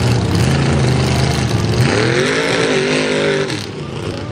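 Mega mud truck engine running hard through a mud bog: it holds steady at first, revs up with a climbing pitch about two seconds in, then falls back and drops in loudness near the end.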